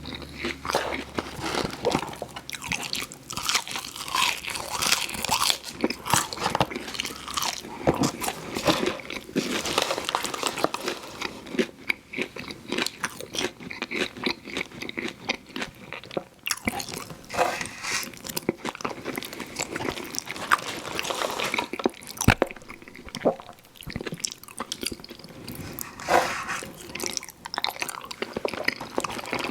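Close-miked eating of crunchy fried food: big bites with crackling crunches and wet chewing, coming in irregular runs throughout.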